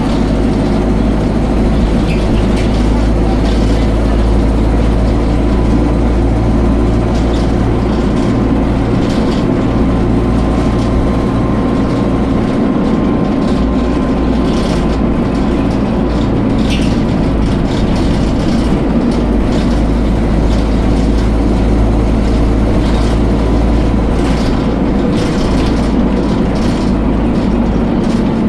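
Dennis Dart SLF single-deck bus running with a steady deep diesel rumble, and a faint thin whine over it through the middle stretch. This is the bus's unexplained acceleration noise.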